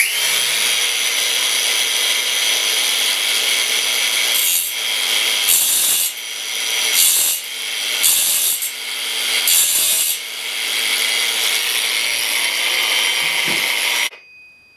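Cordless grinder running with a steady hum while grinding the steel teeth of a wood lathe's spur center, with repeated louder passes every second or two as it bites into the metal. It cuts off abruptly near the end; the owner complains this grinder shuts off too easily under load.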